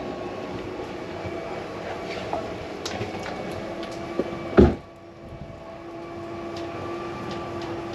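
A steady mechanical hum with scattered light clicks and knocks, and one loud thump a little past halfway through, after which a steady tone hums on.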